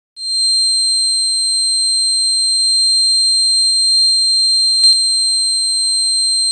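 Homemade fire alarm's buzzer sounding a continuous, steady high-pitched tone. A single click comes about five seconds in.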